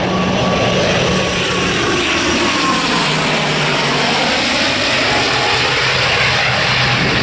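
Airliner engines running loudly as an aircraft passes close by, with a thin steady whine over the engine noise and a sweeping change in tone as it goes past, around the middle.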